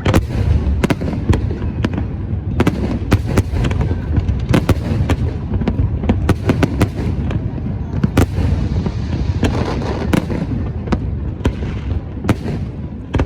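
Aerial fireworks display: a rapid, unbroken series of sharp bangs and cracks, several a second, over a continuous low rumble of booms.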